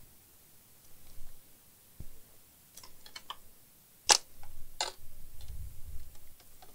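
Scattered sharp plastic clicks and snaps from a Toshiba laptop's screen bezel being worked loose by hand. The loudest comes about four seconds in, with another just after.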